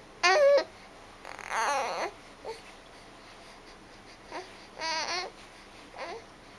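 Baby babbling: short, high-pitched, wavering vocal sounds with pauses between them, the loudest right at the start.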